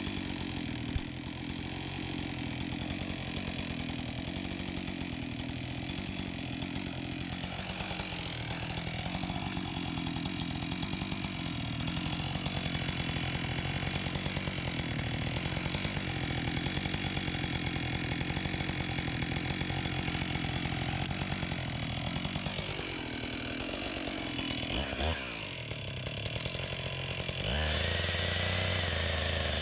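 Husqvarna 576 XP two-stroke chainsaw running steadily. About 23 seconds in, its revs fall away, and near the end the sound changes to a steadier, lower drone.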